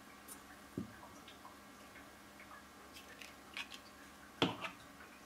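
Quiet clicks and taps of hands handling a glue stick and thin paper strips on a cutting mat, with a knock about a second in and a louder one about four and a half seconds in.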